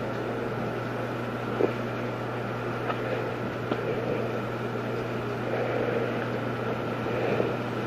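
A steady mechanical hum with hiss, with a few faint clicks.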